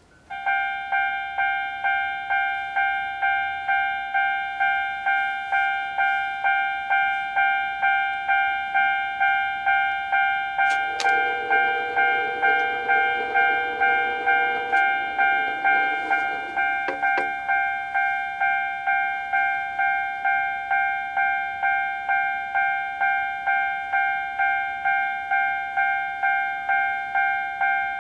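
Japanese level-crossing warning bell starting up and ringing its repeated electronic clang, a little under two strokes a second. It signals that the crossing has been activated for an approaching train.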